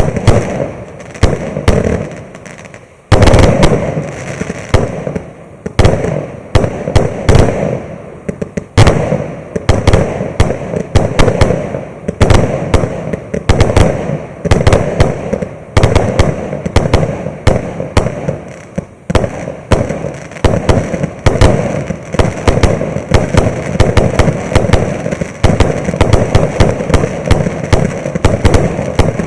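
A 200-shot 0.8-inch fireworks cake firing a loud, rapid, unbroken volley of shots and bursting shells, several bangs a second with crackle between them. A short lull comes before a sudden loud bang about three seconds in.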